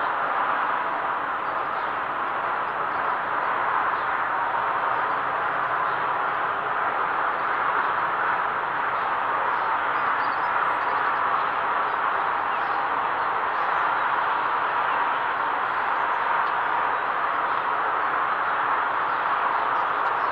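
Steady, even rushing noise with no distinct events: the background din of a steelworks heard from a distance.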